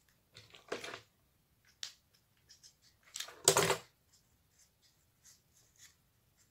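Burlap fabric rustling and scraping under fingers as it is pressed onto a plastic jar lid, with scattered small clicks. The loudest rustle comes about three and a half seconds in.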